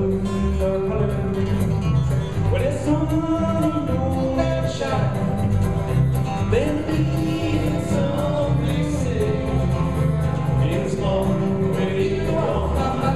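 A live bluegrass-style band playing: strummed acoustic guitars and electric bass under a sliding lead melody line.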